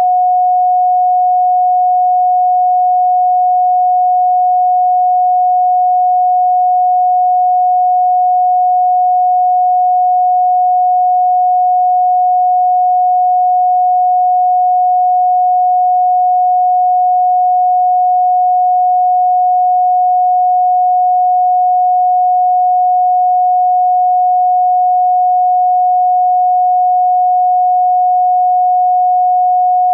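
A steady, unchanging pure sine tone at 728.131 Hz, a single electronically generated pitch with no pulsing or variation.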